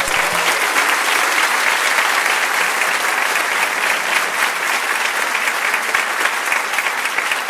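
Live audience applauding: dense, steady clapping.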